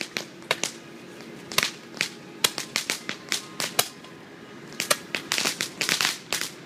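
Fireworks and firecrackers going off in sharp, irregular bangs and cracks, with a quick run of them near the end.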